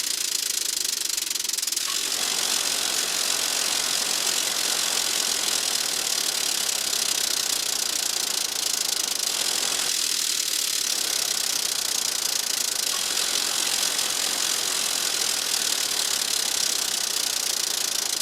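Hammer blows on hot steel, sped up to three times speed so the strikes run together into a fast, continuous metallic clatter.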